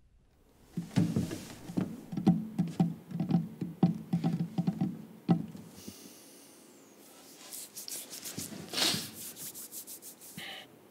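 A hand tapping and knocking on a hard surface in a quick, uneven rhythm for about four seconds. Softer rubbing and brushing follows, with one louder swish near the end.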